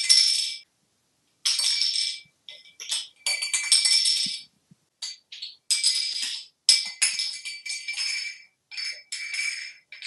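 A bottle cap rattling and scraping across a tiled shower floor as a parrot pushes and tosses it, in irregular bursts of a second or less with short silences between.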